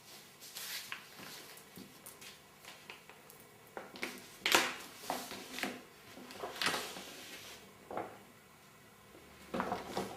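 Hands handling jewellery packaging: scattered rustles and light knocks, the loudest about four and a half seconds in.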